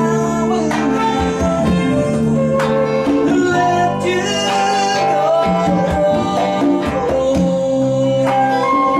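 Live band jam: acoustic guitar and electric bass playing together under a held, gliding melody line.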